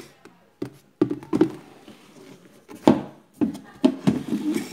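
Hard plastic parts of a rice dispenser being handled and fitted together: a string of knocks, taps and clunks, the loudest about three seconds in.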